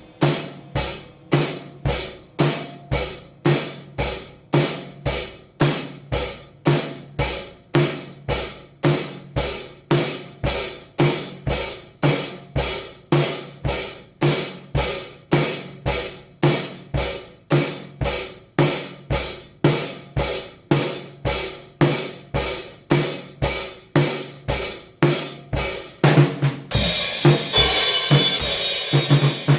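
Drum kit played in a steady beat, about two hits a second. Near the end, ringing cymbals with faster strokes come in over it.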